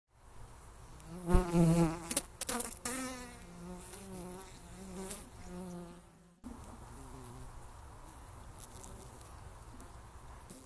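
Honey bees buzzing. In the first few seconds a bee passes close to the microphone with a loud, wavering buzz and a few sharp clicks. After an abrupt cut about six seconds in, a steadier, quieter buzz of bees carries on.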